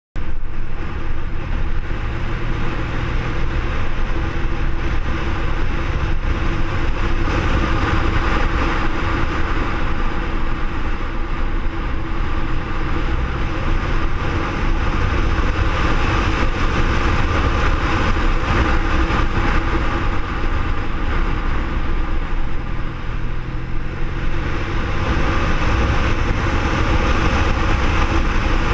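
BMW R1200R boxer-twin motorcycle engine running steadily at road speed, mixed with a steady rush of wind and road noise.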